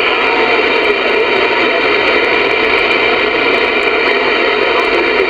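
Steady hiss of band noise from a Voyager VR9000 CB radio's speaker as it is tuned up through the 11-meter band, with faint warbling under the static and no clear voices on these frequencies.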